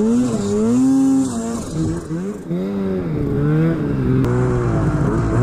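Arctic Cat snowmobile engine revving up and down as the sled is ridden through deep snow, its pitch swinging with the throttle.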